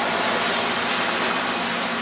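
Steady, loud rushing rumble of a New York subway train on the elevated track. A faint high whine comes in near the end.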